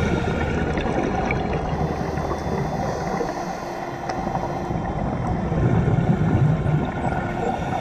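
Underwater sound through a GoPro camera housing: a steady hum with a few faint held tones over a fine crackle, and a louder low rush about six seconds in.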